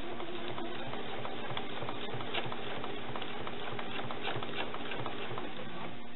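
Domestic sewing machine running steadily in straight stitch, its needle ticking rapidly as a quilt sandwich is hand-guided under the presser foot for free-motion quilting. It stops right at the end.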